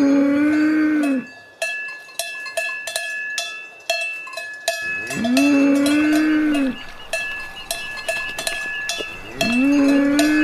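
A cow mooing three times, evenly spaced, each a long arched call, with a cowbell clanking about three times a second in the gaps between.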